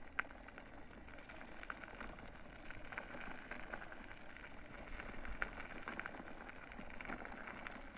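Pneumatic tyres of an Acedeck NYX Z1 electric mountainboard rolling over a dirt road: a steady gritty crackle scattered with small ticks from grit and pebbles under the wheels.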